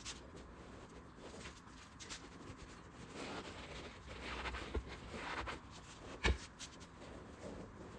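Cloth seat upholstery being stretched and pulled back over a truck seat: rustling and scraping fabric with small clicks of plastic trim, and one sharp knock about six seconds in.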